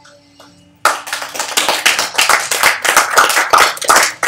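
A small audience applauding, breaking out suddenly about a second in as a dense run of individual hand claps.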